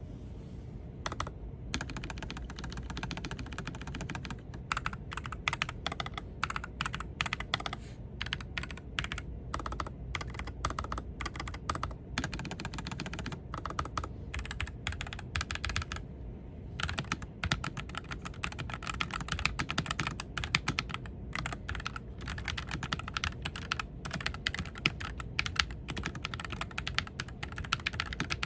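Continuous typing on a pre-lubed Nuphy mechanical keyboard: fast, irregular key clicks with a short pause about two-thirds of the way through.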